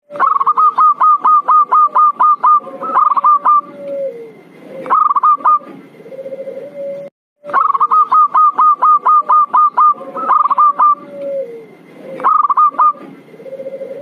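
Zebra dove (perkutut) lure call: rapid runs of short staccato cooing notes, about six a second, over lower drawn-out coos. The recording repeats as a loop, with a brief silent break about seven seconds in.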